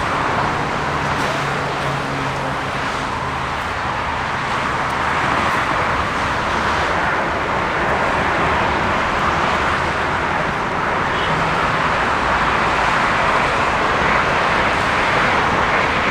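Jet airliner engines, a steady rushing noise that grows gradually louder.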